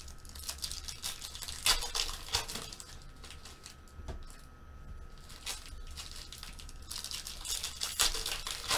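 Foil wrapper of a 2014 Bowman Chrome football card pack being torn open and crinkled by hand. It comes in crackling bursts over the first few seconds and again near the end, quieter in between.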